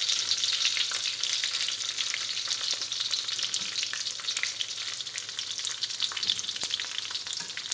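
Whole spices (cumin seeds, cinnamon stick, bay leaves, cardamom, dried chili) sizzling in hot ghee and oil, with many small crackling pops.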